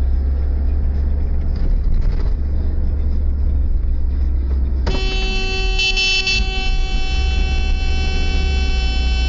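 Low rumble of a car driving, then about five seconds in a vehicle horn starts and is held down as one long, steady blast.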